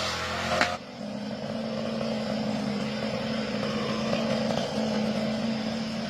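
Small petrol lawn mower engine running steadily under load. The sound changes abruptly less than a second in, then holds an even engine note.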